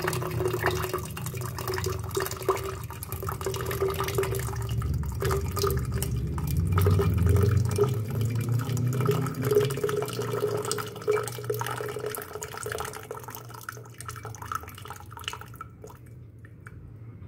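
Hot water poured from a stainless steel kettle into a glass pitcher: a continuous splashing stream that grows quieter over the last few seconds.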